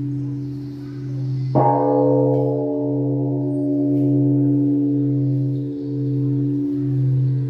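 A struck singing bowl or bowl-bell: one strike about one and a half seconds in rings on, slowly fading, over a steady low hum of held tones.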